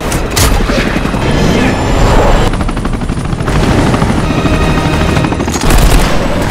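Helicopters flying close by in a film chase scene, rotor chop and engine, with pitch sweeping as they pass. Rapid gunfire comes near the end.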